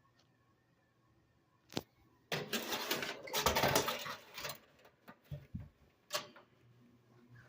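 Metal clattering and rattling of a rusty box fan being handled, with a few knocks and clicks. A low steady electric hum from the fan's motor grows stronger near the end.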